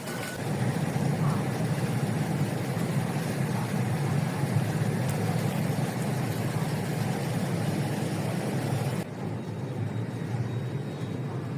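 Steady low rumble of a moving vehicle, with a hiss above it that drops away suddenly about nine seconds in.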